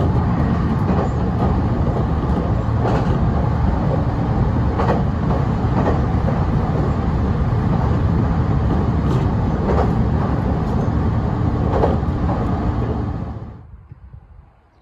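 A heavy vehicle running close by: a loud, steady low rumble with scattered sharp knocks, fading away quickly about thirteen seconds in.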